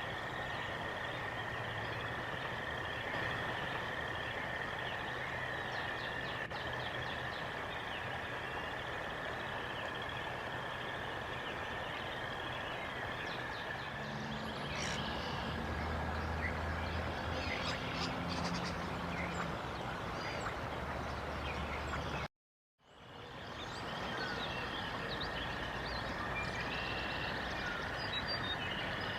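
Outdoor morning ambience: a steady wash of background noise with a continuous high-pitched trill, birds chirping in the middle, and a low engine hum, likely a passing vehicle, at the same time. The sound cuts out for a moment about three quarters of the way through.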